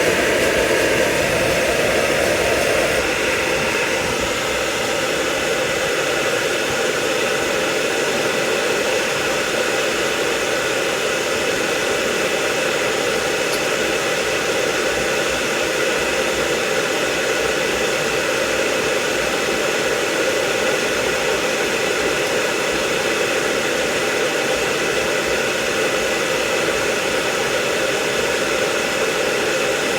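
A hair dryer blowing steadily, drying a dog's coat; its tone shifts slightly about three seconds in.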